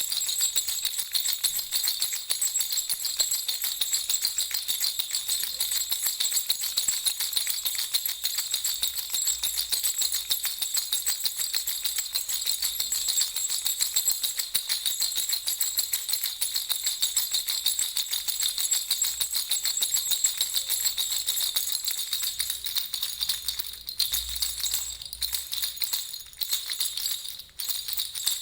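Baby's toy rattle (jhunjhuna) shaken continuously, a fast, bright jingling, with a few short breaks near the end.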